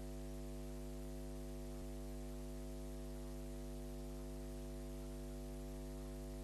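Steady electrical mains hum with its evenly spaced overtones and a thin hiss on the recording. There is no game sound, and one faint tick comes about two seconds in.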